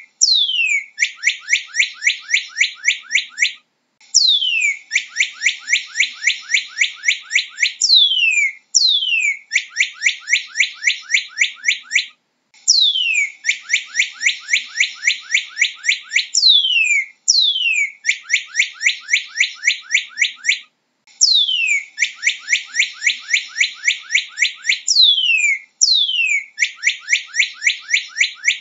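Northern cardinal singing: repeated phrases that open with long down-slurred whistles and run into fast series of short slurred notes, about six or seven a second. Each phrase lasts three to four seconds, with short pauses between.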